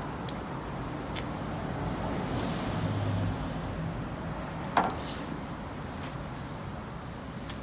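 Chubu Koki LL-1000 lathe running with a steady mechanical hum, a short low drone swelling just before the midpoint. A sharp clack, the loudest sound, comes a little before five seconds in, with a few lighter clicks earlier and near the end.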